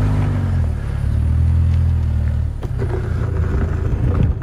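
2024 Toyota Land Cruiser's 2.4-litre turbocharged four-cylinder hybrid engine pulling at low revs as the SUV crawls over a rutted dirt obstacle, its pitch rising and falling twice. From about halfway, the crackle and crunch of tires working over the dirt comes in over the engine.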